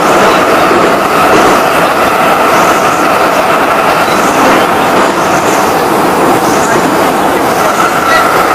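Moscow Metro Ezh-series subway train running at speed, heard from inside a car: loud, steady wheel and rail rumble with a high hum that fades in the middle and comes back near the end.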